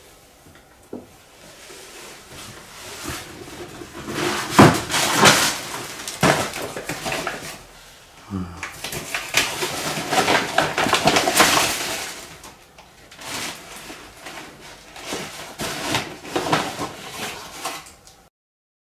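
Plastic bags crinkling and rustling as they are pulled out of an under-floor storage compartment along with a thick rope, with a few sharp knocks against the wooden compartment.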